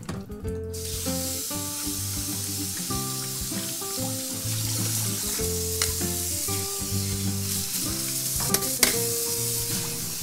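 Kitchen tap water running steadily as oysters are rinsed, starting about a second in, with a few sharp knocks near the end; background music with held notes plays throughout.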